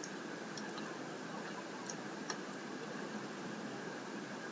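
A few faint computer-mouse clicks over steady microphone hiss.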